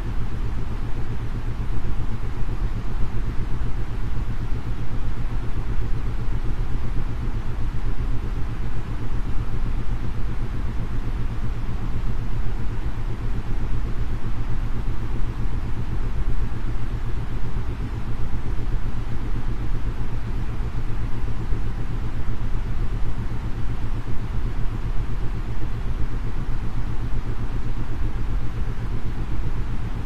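Steady white-noise hiss with low isochronic tones beneath it, switching on and off rapidly several times a second. This is a brainwave-entrainment sleep track pulsing in the 9.5 to 7.83 Hz range.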